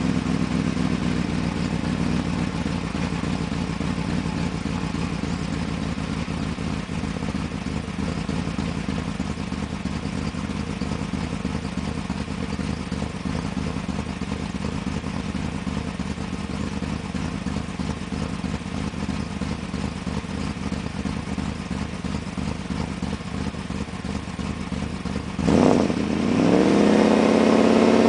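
1995 BMW 530i's V8 running rough at idle through a Magnaflow exhaust, the rough idle caused by a vacuum leak after a top-end rebuild. The idle speed drops and settles in the first couple of seconds, holds uneven, then the engine is revved sharply about 25 seconds in.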